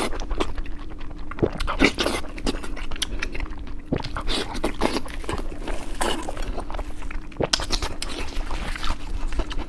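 A person chewing braised pork belly close to the microphone: irregular wet mouth clicks and smacks, with a faint steady hum underneath.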